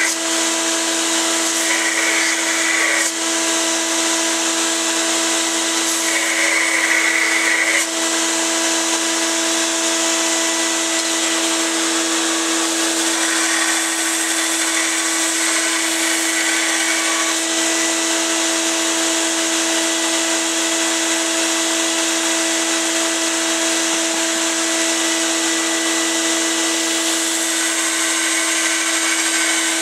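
Belt sander running steadily with a constant hum, as a CPM 154 stainless steel knife blank is pressed against the belt to grind its profile. The grinding of steel on the belt comes and goes in several passes, the longest about halfway through.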